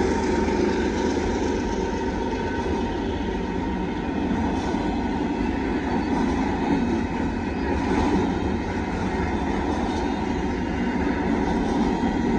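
Double-stack intermodal container cars of a Union Pacific freight train rolling past: a steady rumble of steel wheels on the rails.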